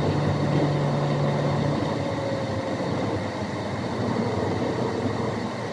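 Road and traffic noise heard from inside a moving car, with a steady low hum that stops about two seconds in.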